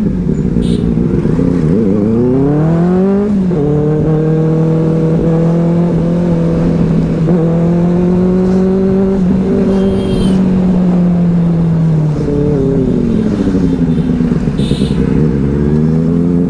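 Benelli 600i's inline-four engine pulling hard with rising pitch, a gear change about three seconds in, then holding a steady note at speed before easing off with falling pitch about twelve seconds in and picking up again near the end.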